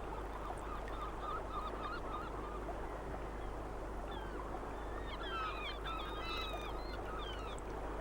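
A flock of waterbirds calling: many short, gliding, chattering calls overlapping over a steady background hiss, growing busiest about five to seven seconds in.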